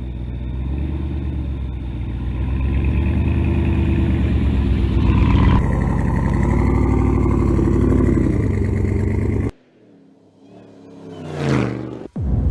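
Supercharged 6.2-litre HEMI V8 of a Ram pickup running hard, its pitch climbing and easing, then cutting off suddenly about nine and a half seconds in. Near the end comes a brief sweep that rises and then falls.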